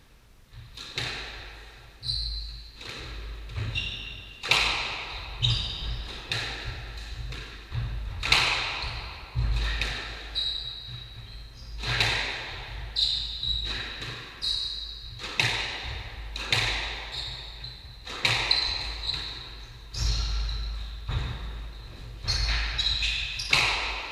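A squash rally: the ball is struck by the rackets and hits the walls about once a second, each knock echoing in the court, with shoes squeaking briefly on the wooden floor.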